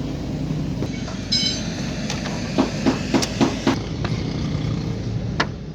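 Nissan Dayz engine running steadily at idle, free of the engine noise it had before the repair. A brief high squeak comes about a second in, and a quick run of about five sharp clicks or knocks sounds around the middle, with one more near the end.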